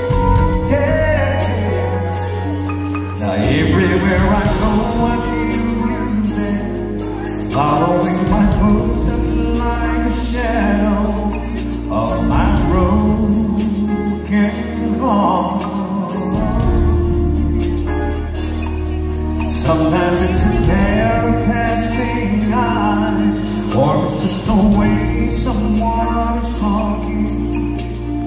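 Live band playing an R&B ballad: electric guitar, keyboards, congas and bass, with a voice singing over it.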